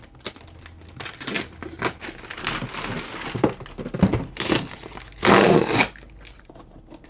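Shipping package being cut open and its packing crumpled and torn by hand: a string of irregular rustling, crinkling bursts, the loudest about five seconds in.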